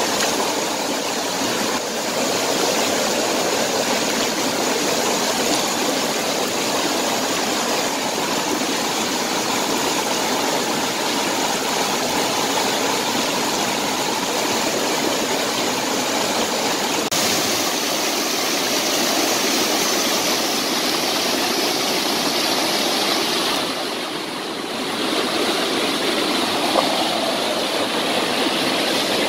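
Shallow stream water rushing steadily over rock, with a brief dip in level about three quarters of the way through.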